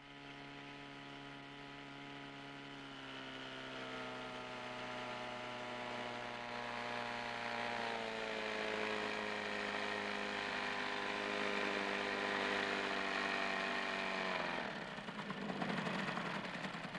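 A small motorboat's engine running steadily and growing louder as the boat comes closer. Near the end its pitch drops and it cuts out, followed briefly by a rushing noise.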